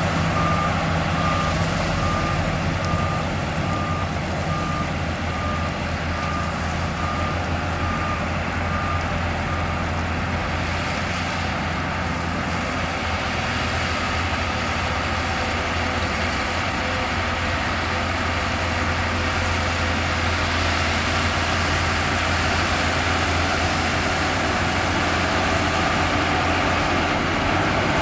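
Heavy diesel earthmoving machinery running steadily under load. A reversing alarm beeps about every 0.7 seconds for the first nine seconds or so, then stops.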